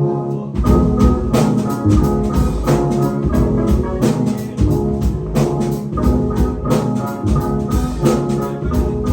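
Live band with bass, keyboard samplers and drums playing an instrumental passage of a song: held keyboard chords, then drums and bass come in about half a second in with a steady beat.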